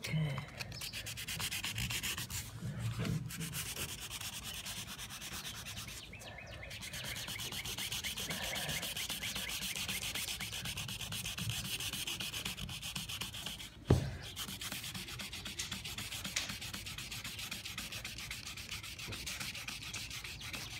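Coarse 80-grit sanding disc rubbed back and forth by hand over a vinyl (PVC) patio door sill in quick short strokes, grinding down a deep cut in the plastic. The scratching runs with brief pauses, and a single sharp knock comes about two-thirds through.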